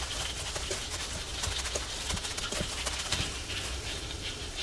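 Gloved hand kneading and squeezing a ground beef and tofu filling in a stainless steel bowl: wet squishing of the mixture and crinkling of the plastic glove, with irregular soft knocks against the bowl.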